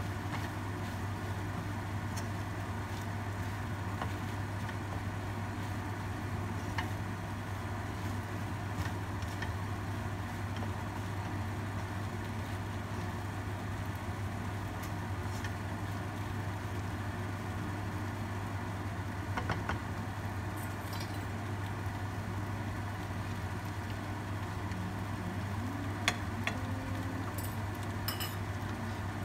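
A wooden spatula stirring kimchi fried rice in a nonstick wok over a steady low hum, with a few sharp clicks of the spatula against the pan, most clearly twice near the end.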